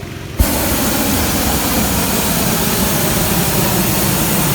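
Hot air balloon's propane burner firing in one long, steady blast that starts suddenly about half a second in, over a steady low hum.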